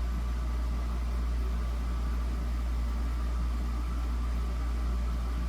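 Steady low-pitched hum with an even background hiss and no distinct events.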